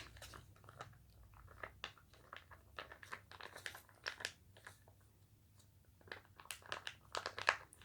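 Homemade slime with coconut oil being worked: faint, irregular sticky clicks and crackles, thicker near the end.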